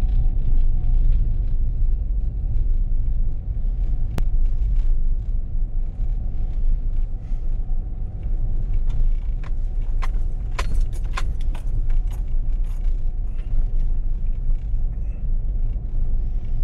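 Motor vehicle running, a steady low engine and road rumble. A few sharp metallic clicks or rattles come about ten to eleven seconds in.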